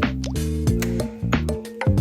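Background music: a tune of short pitched notes that change several times a second, with light percussive strikes.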